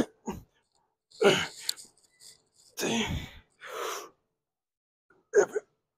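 A man breathing hard and grunting while pushing a seated chest press loaded with the full weight stack: a run of short, forceful exhales, roughly one every second, as he strains through each rep.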